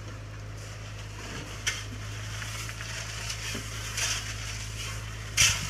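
Gravel being tipped from a wheelbarrow and shovelled, crunching and scraping, with a sharp knock about a second and a half in and a louder scrape near the end, over a steady low hum.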